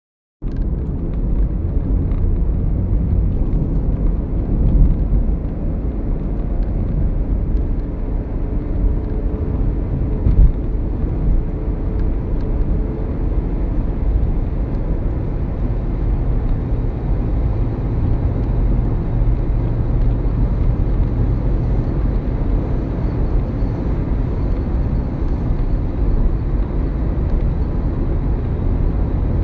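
Steady low rumble of road and engine noise inside a moving car, with a faint hum and two brief louder bumps, about five and ten seconds in.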